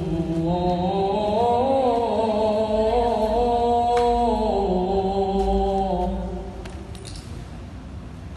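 A boy reciting the Qur'an in the melodic tilawah style into a microphone. He holds one long, ornamented phrase that climbs in pitch and then falls back, and it ends about six seconds in.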